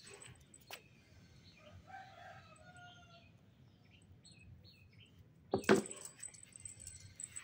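A kitten pouncing on a feather wand toy by a sisal scratching post: faint scattered clicks and rustles, then a short loud rustling clatter about five and a half seconds in. A faint drawn-out call sounds in the background a couple of seconds in.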